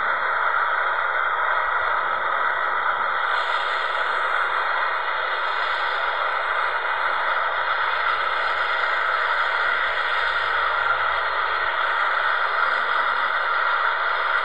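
Steady rushing roar of an Airbus A330's jet engines on landing approach, even in level throughout, with a faint thin whine riding on it.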